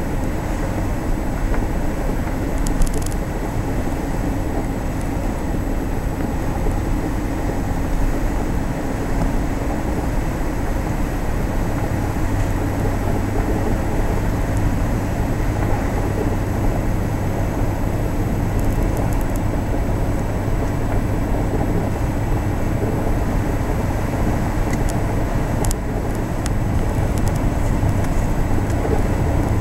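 Four-wheel drive travelling along a sand beach, heard from inside the cabin: steady engine and tyre noise, with a low hum that grows stronger about twelve seconds in.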